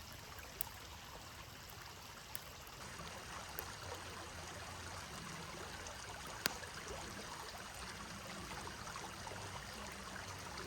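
Steady hissing with a few sharp ticks from a pan being heated until it is very hot for cooking.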